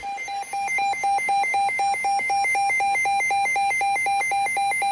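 Electronic weather-alert alarm beeping rapidly and evenly, about seven short shrill beeps a second, signalling an incoming warning.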